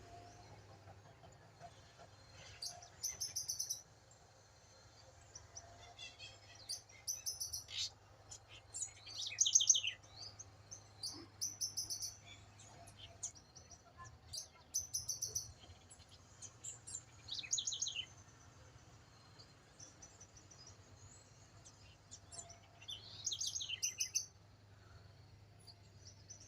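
Wild birds calling and singing: short bursts of high chirps come every one to three seconds, and several of them are quick falling trills.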